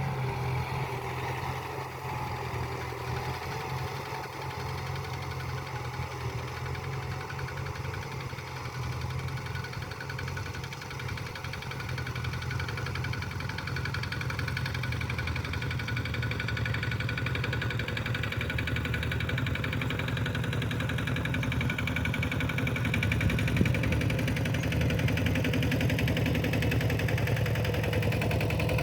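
Kubota tractor's diesel engine running steadily while ploughing, growing gradually louder through the second half.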